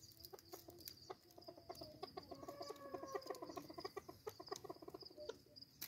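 Chukar partridge calling faintly: a rapid run of clucks lasting a couple of seconds, starting about a second in, over a steady high insect trill.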